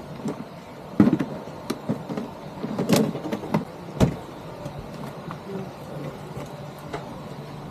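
Motorcycle engine idling low and steady, with a few sharp knocks and clicks about one, three and four seconds in.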